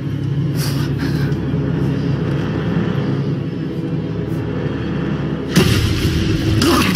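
Low, sustained drone of a dramatic film score, with a sudden loud hit about five and a half seconds in.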